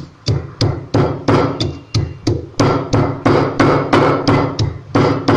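Stone pestle pounding in a stone mortar, striking steadily about three times a second, each blow a dull thud with the rattle of whole coriander seeds, dried pomegranate seeds and cumin being coarsely crushed.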